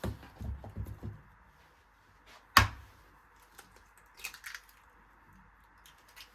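Household handling sounds, most likely kitchen work: a quick run of soft thumps, then one sharp knock about two and a half seconds in, then a few light clicks, over a faint steady hiss.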